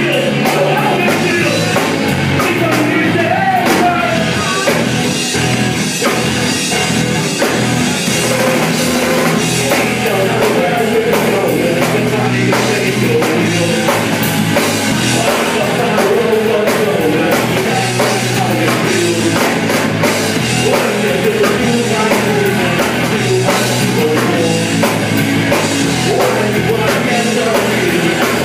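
Live rock band playing loud and without a break: drum kit, electric guitar and a vocalist singing into a microphone, in a punk or metal style.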